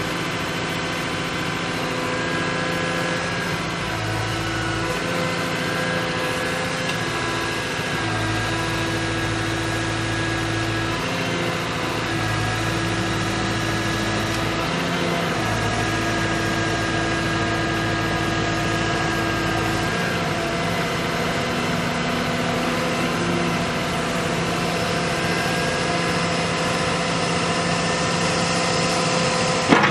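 Cat excavator's diesel engine running steadily, its tone shifting in steps every few seconds as the hydraulics are put under load, typical of working the controls to cycle hydraulic fluid through the system during start-up.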